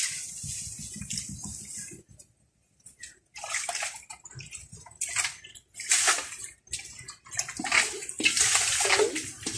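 Hands groping through shallow muddy water for fish, sloshing and splashing in irregular bursts, with a short quiet gap about two seconds in and busier splashing towards the end.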